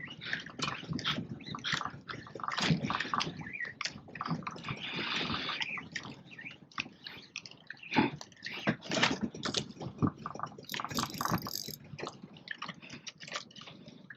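Water slapping and sloshing against the hull of a small boat in irregular splashes.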